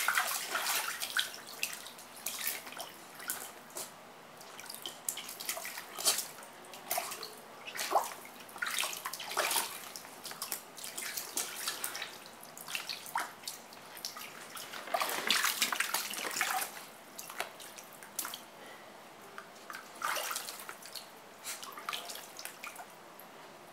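A dog's paws splashing as it wades around in shallow water in an inflatable paddling pool: irregular sloshes and splashes, some louder than others, with no steady rhythm.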